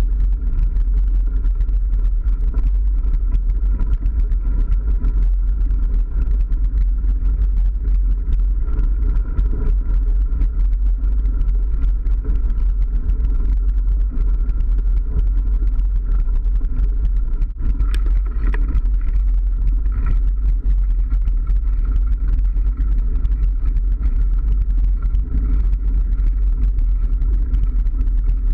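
Wind buffeting the microphone of a camera on a mountain bike, a steady heavy rumble, over the noise of the tyres rolling along a dirt forest track. There is a single sharp click about two-thirds of the way through.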